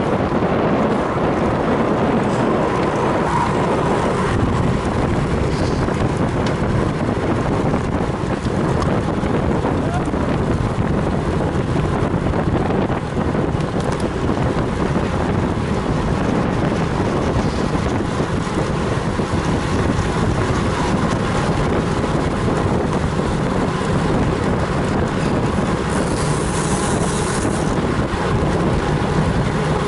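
Steady wind noise buffeting the microphone of a camera on a road bicycle riding at speed, with a brief brighter hiss near the end.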